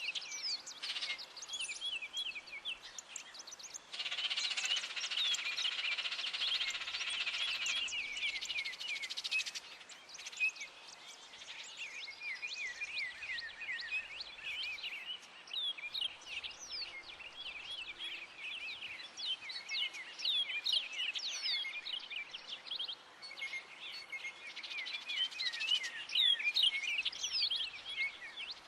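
Dense chorus of many small birds chirping, with short, quick, falling chirps overlapping throughout, over a steady hiss of rain that grows heavier for several seconds about four seconds in.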